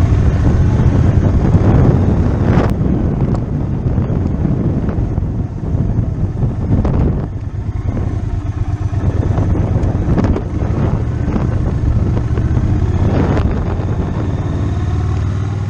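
Triumph T120 parallel-twin motorcycle engine running as the bike rides along, with wind buffeting the microphone.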